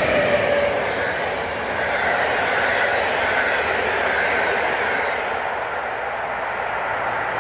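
Intercity passenger train's coaches rolling past on the far track and drawing away, a steady wheel-on-rail rush. A tone falls in pitch at the very start.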